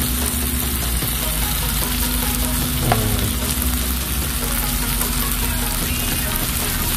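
Chicken pieces sizzling in hot oil with onion, garlic and ginger in a frying pan, steady throughout as a ladle stirs and turns them. One sharp knock of the ladle against the pan just before three seconds in.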